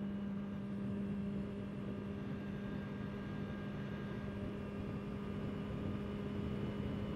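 Honda CBR650R's inline-four engine running at a steady cruise, holding one even drone with no revving, over a rushing haze of wind and road noise.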